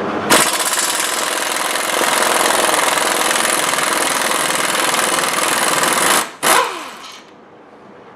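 Impact wrench hammering on a thread-locked 21 mm brake caliper bracket bolt to break it loose, running for about six seconds, stopping, then a brief second burst.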